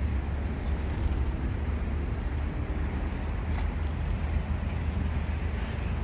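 Steady low rumble of wind buffeting the microphone and bicycle tyres rolling on asphalt while riding.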